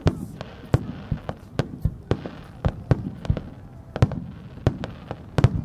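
Aerial firework shells bursting in quick succession: a rapid, uneven string of sharp bangs, several a second, with crackling between them.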